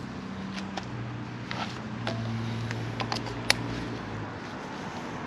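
Plastic garden-hose snap fittings and a water filter cartridge clicking and knocking as they are handled and pushed together, several separate clicks with the sharpest about three and a half seconds in. Under them runs the steady low hum of an engine.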